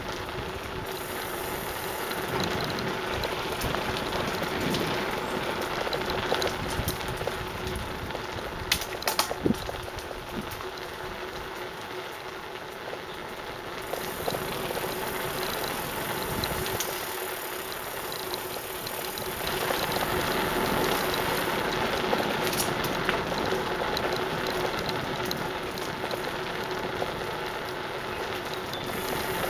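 Bicycle rolling fast along a concrete trail: steady tyre noise and frame rattle, with a few sharp knocks about nine seconds in, and louder from about twenty seconds in.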